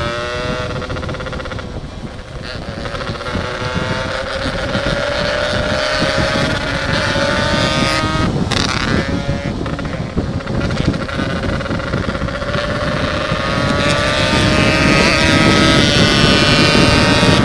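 Yamaha RX-King two-stroke single-cylinder motorcycle with an open, hollowed-out (bobokan) exhaust, ridden under acceleration toward top speed. Its pitch climbs slowly and steadily, with a brief dip about eight seconds in, and it grows louder near the end.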